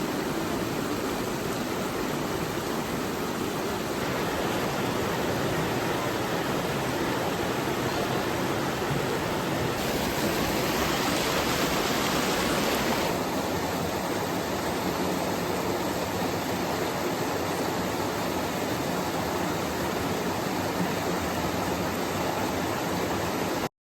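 River water rushing steadily over rocks, a continuous hiss. About ten seconds in it grows brighter and louder for around three seconds, then settles back.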